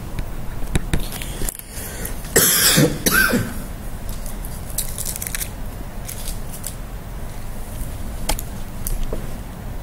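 A man coughing, two coughs close together about two and a half seconds in. A few faint clicks come in the first second.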